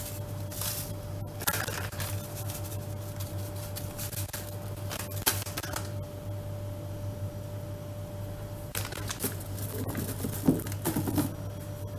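Plastic packet of desiccated coconut rustling and crinkling in short bursts as the coconut is shaken out of it, with light taps and a sharper knock near the end. A steady low hum runs underneath.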